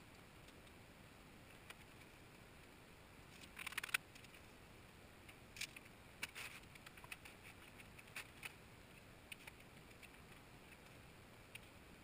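Light metallic clinks and a brief rattle, like small metal tools or parts being picked up and set down, about four seconds in, then scattered single clicks and taps over the next few seconds. The shop is otherwise near silent.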